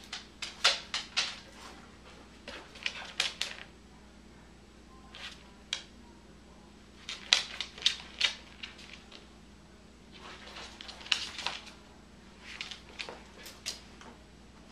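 A corgi's claws clicking on a hardwood floor as it walks about, in short quick runs of ticks with pauses between.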